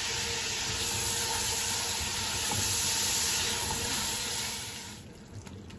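Tomatoes and whole spices sizzling in hot ghee in an aluminium pot as they are stirred with a spatula. The sizzle is steady, then dies down near the end.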